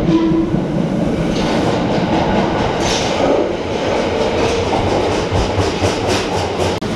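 A train running on rails, a steady loud rumble with a quick, regular clicking of wheels over the rail joints in the second half.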